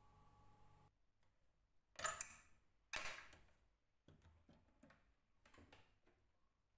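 Old iron latches on an antique wooden suitcase being handled: two sharp metal clicks about a second apart, then lighter ticks and taps as the latches are worked and the wooden lid is lifted.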